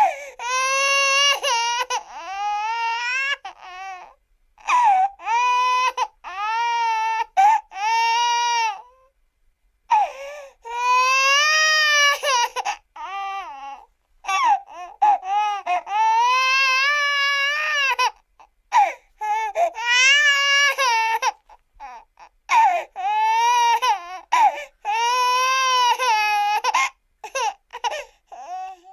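Cartoon crying sound effect: a high-pitched voice wailing and sobbing. It comes in repeated bouts of one to three seconds with short breaks between, each wail wavering up and down in pitch.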